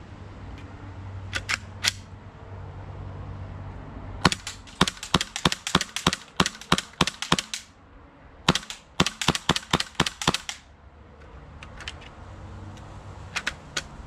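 WE FPG gas blowback airsoft pistol, fitted with a 3D-printed ABS lower, firing two rapid strings of shots: about a dozen, then after a pause of about a second roughly nine more. A few light mechanical clicks of handling come before and after the strings.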